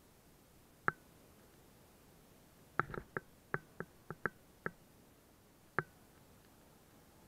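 Sharp knocks and clicks, each with a short ring, about nine of them at uneven intervals and bunched together in the middle, over a very quiet background: the bicycle and its camera mount rattling as it rides over the beach sand.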